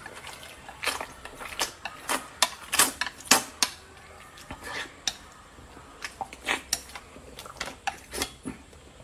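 Utensils clicking and tapping against dishes in an irregular series of sharp knocks, about two a second, while the noodles are handled before eating.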